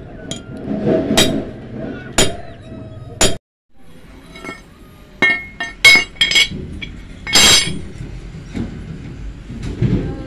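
Sharp metallic clanks with brief ringing as steel pieces are knocked on stone and concrete, including a flat rusty steel bar laid down on the floor. About a dozen clanks, the loudest about seven and a half seconds in, with a short break near three and a half seconds.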